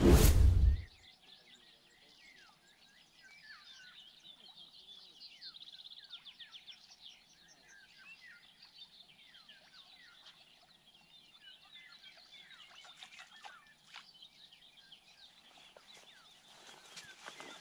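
Small birds singing and calling: many short chirps and quick falling whistles, faint and overlapping. It opens with a brief loud burst of noise lasting under a second.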